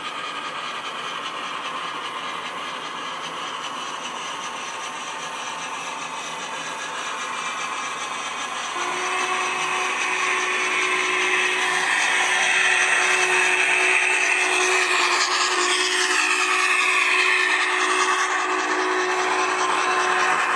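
HO-scale MTH Clinchfield Challenger model locomotive and its passenger cars running along the track: a steady mechanical running noise that grows louder as the train approaches, with a steady hum joining about nine seconds in.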